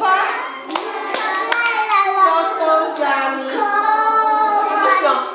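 Young preschool children singing a Christmas song about Santa (Mikołaj) in high voices, with a few sharp hand claps about a second in.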